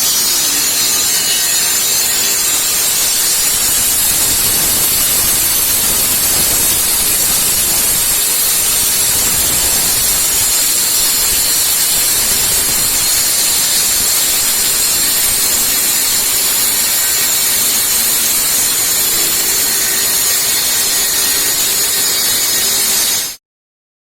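Walk-behind concrete cutting machine running, its blade cutting concrete: a loud, steady hissing grind with a faint engine hum underneath, which cuts off suddenly near the end.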